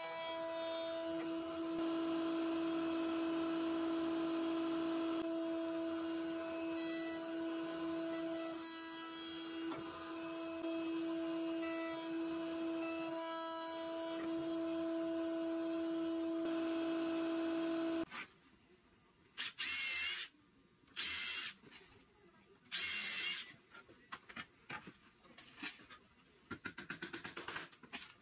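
Hollow chisel mortiser running with a steady motor hum while its square chisel plunges into walnut, cutting mortises; the machine stops abruptly about 18 seconds in. After it, a few short bursts of noise and a quick run of light clicks near the end.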